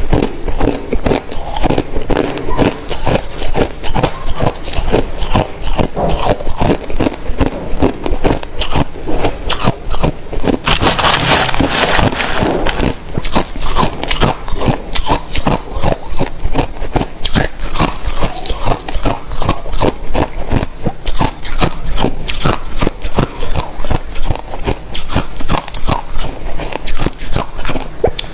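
Crushed ice being chewed close to the microphone: rapid, irregular crunching and cracking. About eleven seconds in there is a louder scraping rush as a metal spoon digs into the bowl of crushed ice.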